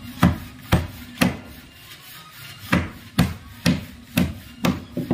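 Hammer driving a nail into wooden shuttering planks: three blows, a short pause, then six more at about two a second.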